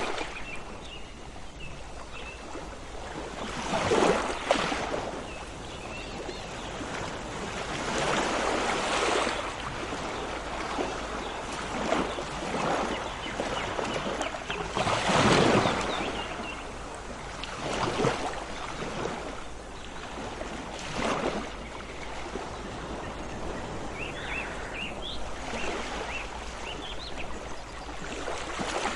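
Sea waves washing in and breaking every three to four seconds, the biggest surge about halfway, with faint short bird chirps here and there and a cluster of them near the end.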